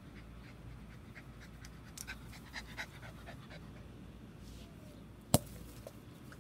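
A Corgi/Chihuahua mix dog panting, with a few light clicks about two to three seconds in and one sharp click a little after five seconds.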